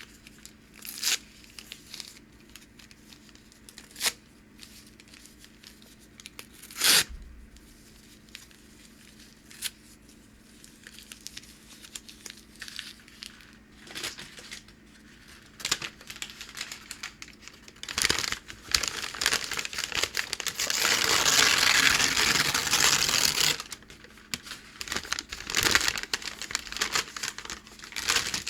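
Packing paper handled and torn by hand. Sharp, scattered crackles come first, then denser crinkling, then one continuous tear of about three seconds past the middle, followed by more crackling.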